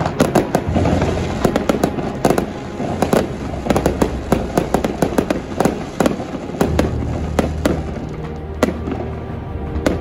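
Aerial firework shells bursting in rapid succession, many sharp bangs and crackles, thickest in the first six seconds and sparser after. Background music plays underneath.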